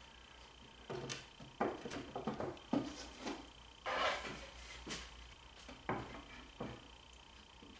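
Pine drawer-box panels being handled and fitted together during a glue-up: a string of light wooden knocks and taps, with a longer scraping rustle about four seconds in.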